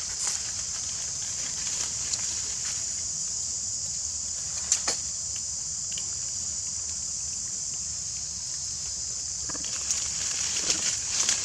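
Steady high-pitched insect chorus, with a few short clicks about halfway through and again near the end.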